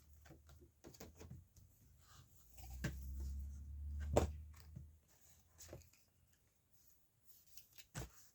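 Cardboard box set being handled and opened: a low rubbing with a sharper knock about four seconds in, and a few light clicks and taps.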